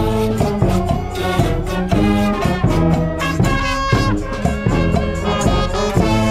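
Brass band music with drums keeping a steady beat: trumpets and trombones playing over percussion.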